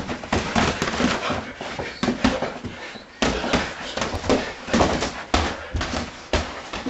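Irregular thuds and slaps of punches landing, with scuffling footwork, in a close-range boxing exchange.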